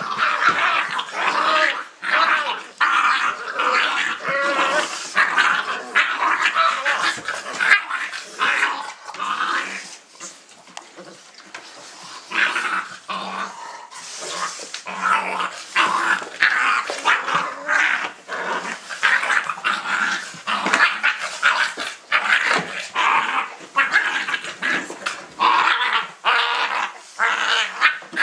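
A litter of Dogo Argentino puppies yipping, whining and play-growling almost without pause as they tussle, easing off briefly about ten seconds in.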